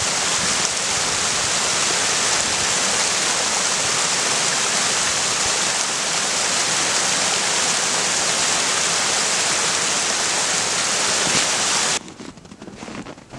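Steady rushing of water from a small snow-banked stream cascade. About twelve seconds in it cuts off abruptly to much quieter, irregular footsteps on a snowy trail.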